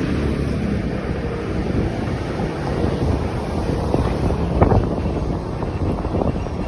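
Wind buffeting the microphone on a moving motorcycle, with the bike's engine running under the rumble. There is a brief louder gust a little past halfway.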